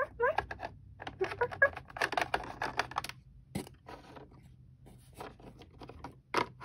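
A plastic toy treehouse playset is being handled as its elevator is rolled up, giving scrapes and clicks of plastic, with one sharp click about three and a half seconds in. In the first three seconds a voice makes short wordless sounds.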